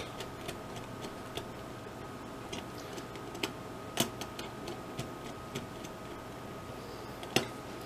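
Scattered faint clicks and ticks of wire ends being fed into a circuit board's screw-terminal block by hand, a few sharper ones near the middle and near the end, over a faint steady hum.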